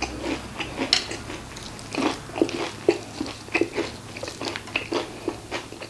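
Chewing a mouthful of crispy Korean fried chicken, the crisp batter coating crunching in many short, irregular crackles.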